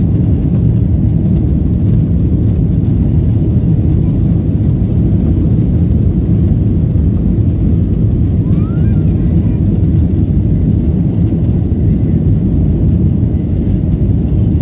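Steady low rumble of a Boeing 737's jet engines and rushing air, heard inside the passenger cabin during the climb after takeoff.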